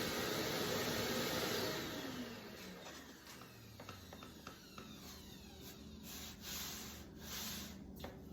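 DeWalt table saw winding down after being switched off: the motor and blade hum falls in pitch and fades over about three seconds. Faint scattered clicks and rattles follow.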